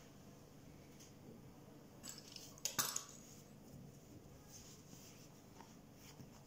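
A metal pizza-cutter wheel set down on a table, giving a few sharp clinks between about two and three seconds in; otherwise only faint, soft handling of dough.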